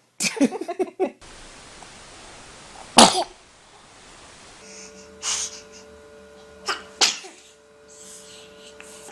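A baby sneezing several times in short, sharp bursts. The loudest sneeze comes about three seconds in.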